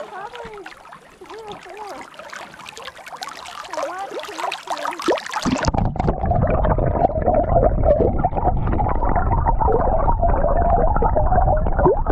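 Spring water bubbling up out of the creek bed, gurgling at the surface, then heard with the microphone underwater from about halfway: the sound turns abruptly muffled into a dense low rumble of bubbling.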